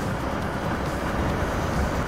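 Steady wind rush and running noise of a Yamaha MT-15 motorcycle on the move, picked up by the rider's microphone.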